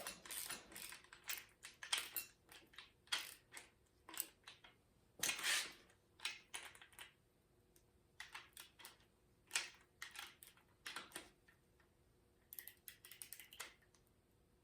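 Faint, irregular light clicks and taps of small metal parts and hand tools being handled while working on an engine's valve train.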